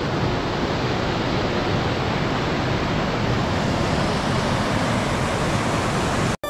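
Steady rushing of stream water, a dense even hiss that cuts off suddenly near the end.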